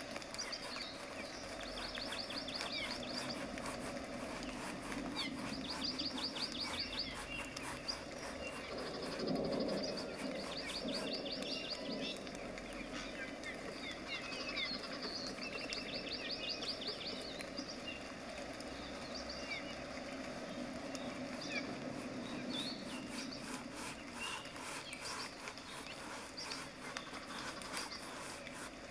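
Small birds chirping, with short rapid trills repeating every few seconds. Under them is a soft, continual scratching of a flat bristle brush dragged across stretched canvas.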